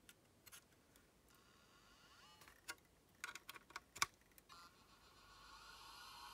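Conner CP2024 laptop hard drive under power, failing to spin up and giving a few faint clicks, most of them between about three and four seconds in. The clicks are the sign that the heads are stuck to the rubber bumper. A faint high whine comes in near the end.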